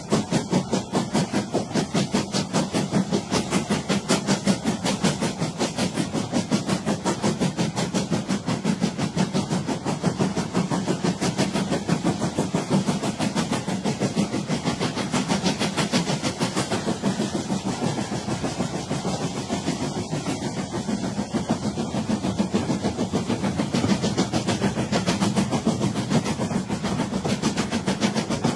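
Steam train running at a steady pace, its chuffing and hiss of steam in a fast, even rhythm that goes on without a break.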